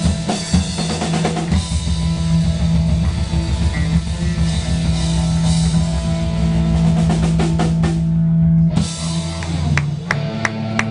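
Live rock band playing loud, with a pounding drum kit and guitar. About nine seconds in the drumming stops on a last hit, and held guitar chords are left ringing.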